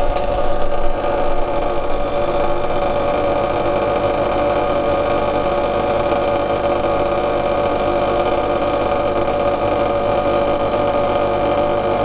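Gaggia Classic Pro's vibratory pump buzzing steadily as it pushes water through the coffee puck while pulling an espresso shot.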